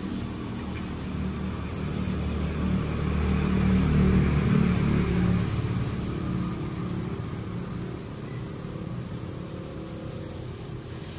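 A passing engine's rumble swells to its loudest about four seconds in and then fades, over the steady sizzle of longanisa sausages frying in a pan.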